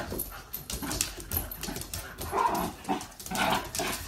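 A cockapoo puppy and a French bulldog–pug cross puppy play-fighting on a laminate floor. Their paws scuffle and their claws click on the floor, and the dogs make short vocal noises about two and a half and three and a half seconds in.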